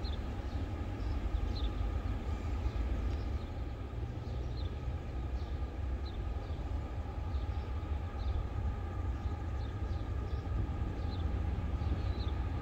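Low steady rumble of an approaching diesel-hauled freight train still some distance off, with a bird chirping briefly about once a second.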